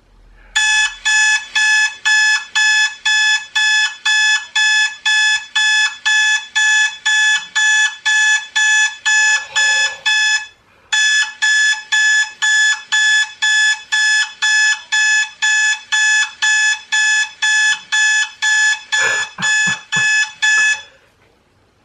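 Electronic alarm clock beeping in a fast, even pattern of identical high beeps, about two and a half a second, with a brief break about halfway through; the beeping stops shortly before the end.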